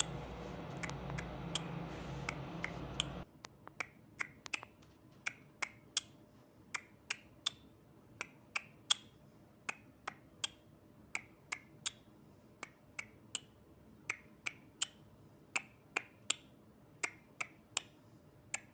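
A steady run of sharp, light clicks, falling roughly in groups of three about every second and a half. A low background hum stops abruptly about three seconds in.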